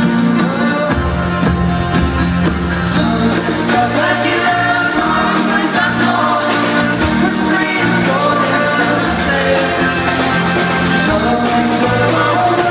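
Live band music: a full band with bass and drums playing a pop-rock song, with singing.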